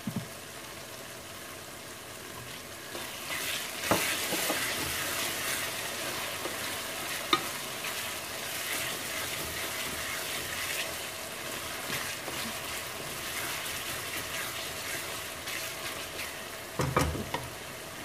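Onion-tomato masala with garlic-ginger paste and freshly added chopped green chillies sizzling in hot oil in a metal wok, stirred with a wooden spatula. The frying and scraping get louder about three seconds in as the stirring starts, with a sharp knock at about four seconds and a few knocks near the end.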